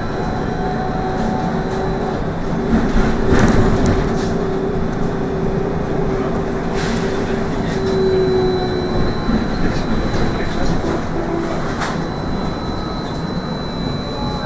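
Trolleybus in motion: its electric traction drive gives a steady whine over tyre and road noise. The whine fades about eight seconds in, and there are a few short knocks and rattles, the strongest about three and a half seconds in.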